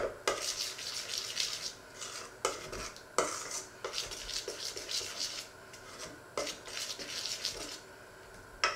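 A metal spoon stirring a liquid mixture in a stainless steel bowl, scraping around the sides in short bursts, with a sharp clink against the bowl every few seconds. The stirring stops near the end with one last clink.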